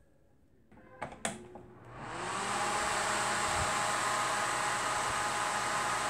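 Microwave oven cooling fan, a small shaded-pole motor turning a plastic blade, switched on: two sharp clicks, then the fan spins up within about a second into a steady rushing whir.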